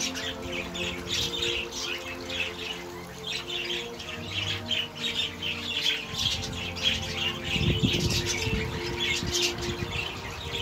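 Small birds chirping in quick, overlapping calls, with a low rustle about eight seconds in.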